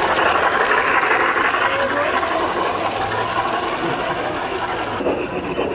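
G gauge garden-railway train running past, a steady fast mechanical rattle of its wheels and drive on the track. The higher part of the rattle drops away near the end.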